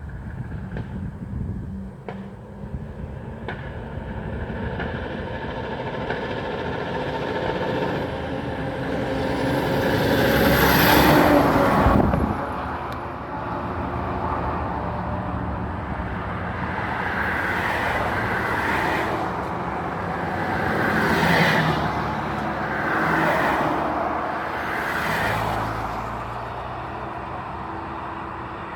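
Road traffic passing close by over a steady engine drone: a heavy vehicle builds up and goes by about ten to twelve seconds in, the loudest moment, and several more vehicles pass in the second half.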